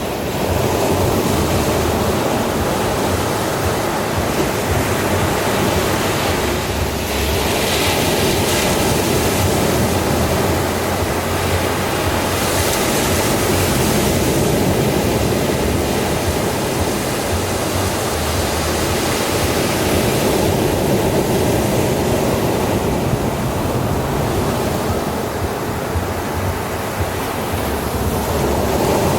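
Ocean waves washing onto a beach: a steady rush of surf that swells now and then as waves break.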